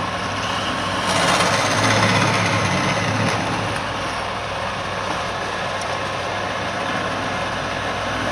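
Woodturning lathe running steadily with a low motor hum and a rushing noise, which grows louder for a couple of seconds about a second in as the spinning wood is worked.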